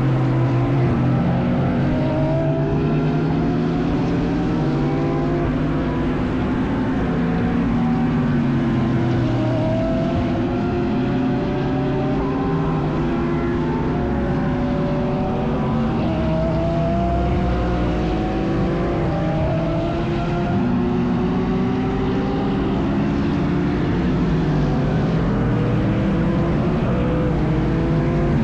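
Engines of several GT3 race cars at speed, their pitches repeatedly rising through the revs and dropping at gear changes, with more than one car heard at once.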